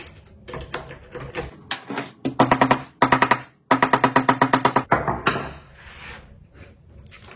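A short burst of music: a fast-pulsing pitched tone heard twice, a brief burst and then a longer one, after a few light taps.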